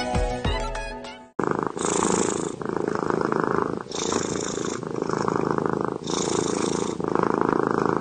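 Music that stops abruptly about a second and a half in, followed by a kitten purring, the purr swelling and easing with each breath in and out, roughly once a second.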